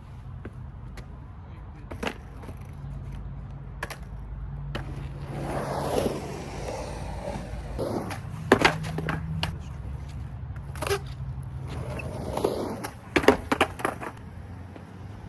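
Skateboard rolling, with a series of sharp clacks as the tail pops and the board lands or hits the ground during tre flip attempts.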